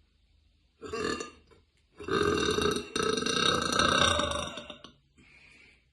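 A woman burping: a short burp about a second in, then a long, loud burp lasting about three seconds, with a brief catch near its middle.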